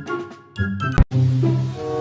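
Background music with held, pitched notes, broken by a sharp click about halfway through, after which a new sustained chord starts.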